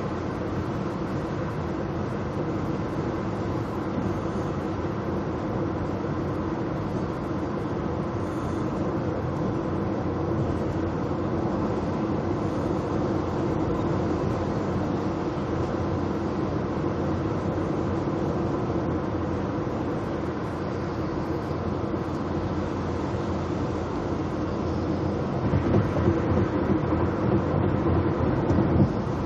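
Steady road and engine noise inside a moving car's cabin at highway speed, growing a little louder and rougher near the end.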